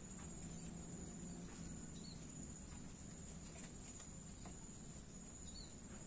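Crickets trilling steadily in one continuous high band, over a faint low rumble of distant traffic. Two brief high bird chirps come about two seconds in and again near the end.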